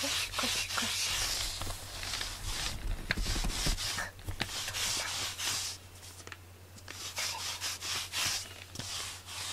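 Pet grooming brush drawn in repeated rasping strokes through fur, about one stroke a second, pausing briefly about two-thirds of the way through.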